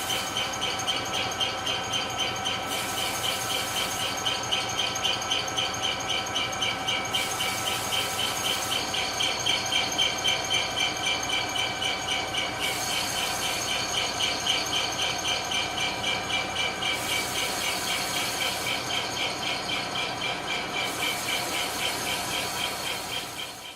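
A machine tool cutting metal with a steady high squeal that pulses evenly a few times a second.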